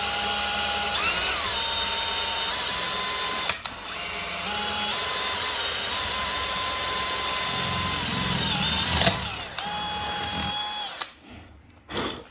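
Electric drill running under load as it bores a 7/32-inch tap hole for a 1/4-28 thread into a weld-filled spark plug body. The whine shifts in pitch a few times as the speed changes, breaks off briefly twice, and stops about eleven seconds in, followed by a short knock.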